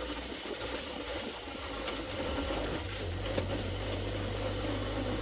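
Steady engine and road noise heard inside a vehicle's cab while driving: a low hum with a few faint ticks.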